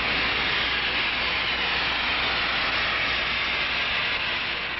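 Steady rushing hiss of rocket-engine exhaust, fading away near the end.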